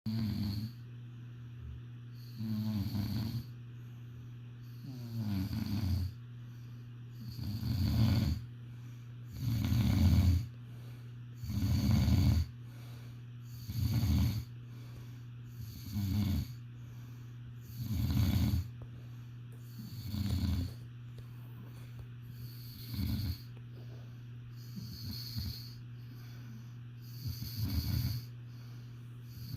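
A sleeper snoring, a loud snore roughly every two seconds, over a steady low hum.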